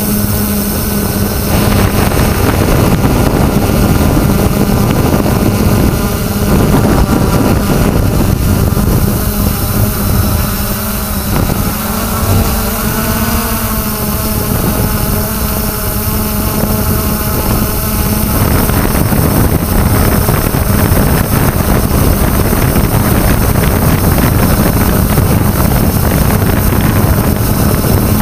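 3DR Solo quadcopter's electric motors and propellers running with a steady buzzing hum, heard from the camera on the drone itself, with wind rushing over the microphone. The pitch of the motors bends up and down about halfway through as the drone manoeuvres.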